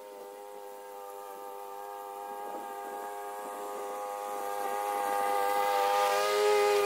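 Petrol lawnmower engine running at a steady speed while mowing, growing gradually louder as it comes closer, loudest near the end.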